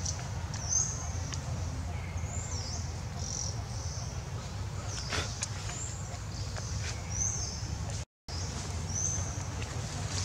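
Short, high-pitched animal calls, each sliding in pitch, repeating roughly once a second over a steady low rumble, with a few faint clicks in the middle and a brief dropout to silence about eight seconds in.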